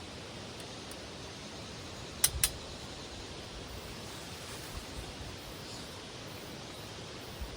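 Steady outdoor hiss with two sharp clicks in quick succession about two seconds in.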